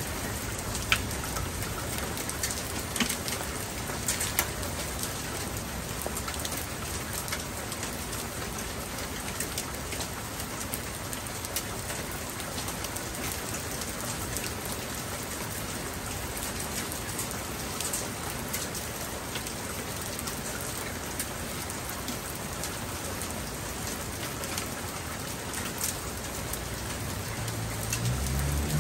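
Steady rain falling, with the sharp ticks of single drops striking surfaces close by. A low rumble begins near the end.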